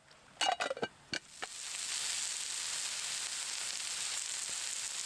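A few quick clatters of a utensil or pan, then food starts sizzling in a hot frying pan about a second and a half in, a steady hiss that keeps going.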